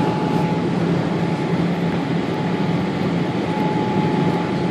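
Steady rumble of a Boeing 787 Dreamliner's engines and rushing air heard inside the cabin, with a constant low hum under it.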